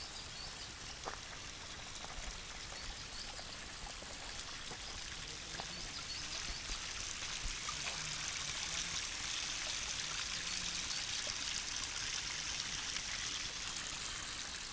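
Spring water pouring from a small outlet and trickling down a rock face: a steady splashing that grows louder about halfway through.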